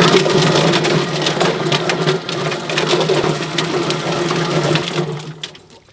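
Drum-style poultry plucker running, its motor humming steadily while a scalded chicken tumbles and slaps against the rubber fingers and wet feathers spatter. The plucker winds down and stops near the end.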